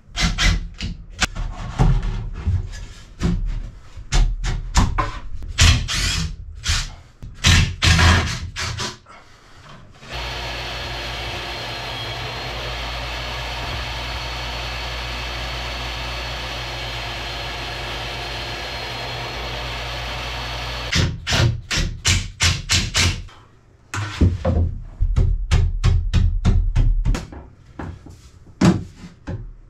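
Jobsite table saw running steadily for about ten seconds in the middle, with a faint high tone over the noise, ripping a shallow trough in a wooden panel. Before and after it come rapid, irregular knocks and clatter of wooden parts being handled and fitted.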